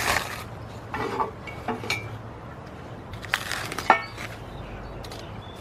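Protective plastic wrap and tape rustling and tearing in irregular bursts as they are pulled off a new catalytic converter exhaust pipe, with a sharp clink of the metal pipe about four seconds in.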